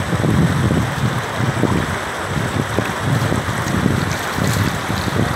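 Floodwater rushing across a submerged road, with wind gusting on the microphone as a low, uneven rumble.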